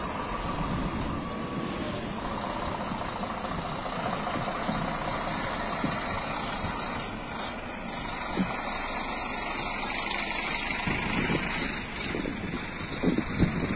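Large coach buses' diesel engines running as the coaches pull slowly past, one passing close by. A few louder low bumps near the end.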